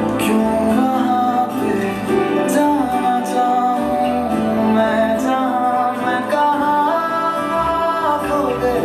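A song with singing, played back through a JBL Charge 4 portable Bluetooth speaker as a sound test.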